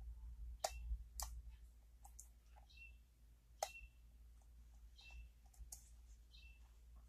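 Lock picking: irregular, faint metallic clicks and ticks of a pick and tension tool working the pins of a challenge lock. Several clicks carry a brief high ping.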